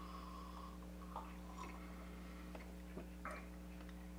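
Quiet room with a steady low electrical hum, broken by a few faint clicks and mouth sounds of beer being sipped from small glasses: one about a second in and a small cluster around three seconds.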